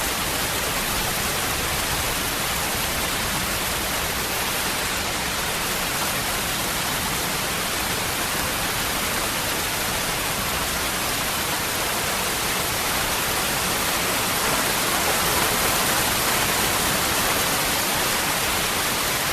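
Waterfall: a steady rush of falling water, a little louder in the last few seconds.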